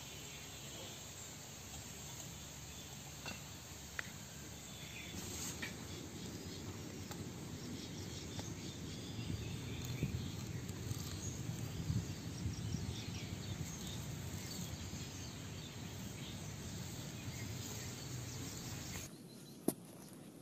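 Outdoor ambience: insects chirping faintly over a low steady noise that swells in the middle, with a few sharp clicks. The sound drops and thins abruptly near the end.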